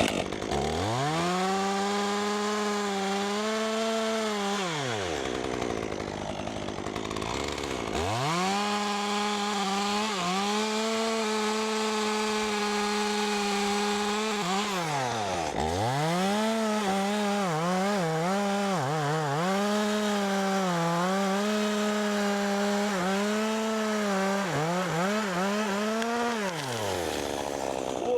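Two-stroke chainsaw cutting into a maple stem at full throttle in long runs. It revs up at the start, drops to idle for a few seconds around 5 s, and is back at full throttle from about 8 s. It dips briefly near 15 s, wavers as the chain loads up, and falls back to idle near the end.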